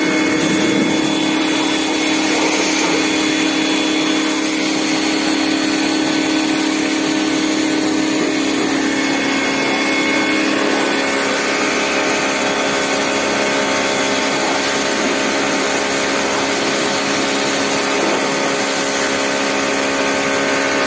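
Bosch Aquatak 125 1500-watt electric pressure washer running steadily with a constant hum, its jet hissing as it rinses car shampoo off a car's body.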